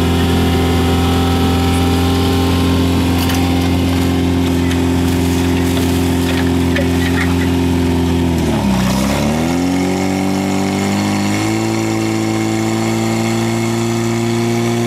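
Portable fire pump's petrol engine running steadily. About two-thirds of the way through, its pitch sags sharply and recovers within a second, as if briefly loaded. A little later it settles at a slightly higher speed.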